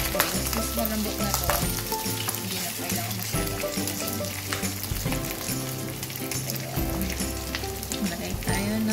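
Pork pieces sizzling as they fry in their own rendered fat with garlic, onion and chili in a nonstick pan, stirred and scraped with a plastic slotted spoon. Background music plays underneath.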